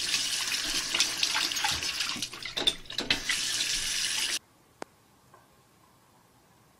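Water running from a bathroom sink tap into the basin, a steady hiss with brief louder splashes. It cuts off abruptly about four seconds in, leaving near silence with a single click.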